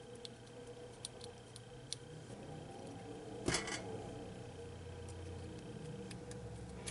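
Faint clicks and a rustle of small parts being handled: a carbon fibre quadcopter top plate and tiny screws, with one brief louder scrape about halfway through. A low steady hum runs underneath.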